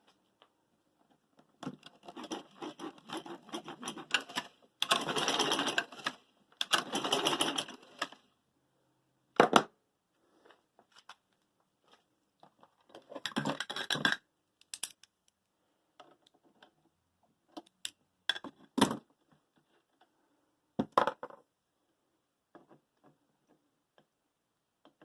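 Intermittent clattering and scraping of objects being handled, in bursts of a second or two, with several sharp single knocks in between.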